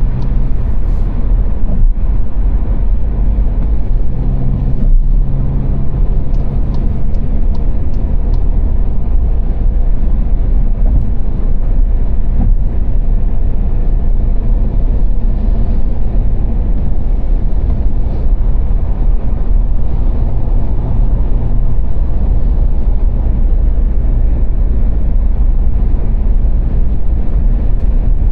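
Car driving at motorway speed: a steady low rumble of tyre and road noise with a faint engine hum underneath. A few faint, evenly spaced ticks come through about 6 to 8 seconds in.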